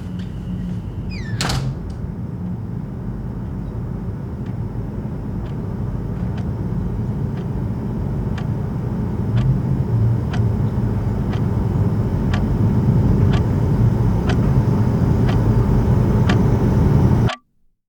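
Steady low rumble of a motor vehicle, growing gradually louder, with a light regular tick about every three-quarters of a second. It cuts off suddenly near the end.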